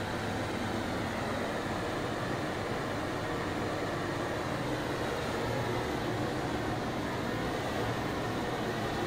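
Long-wand bottled-gas torch burning with its flame wide open, a steady even rushing hiss that holds level without a break.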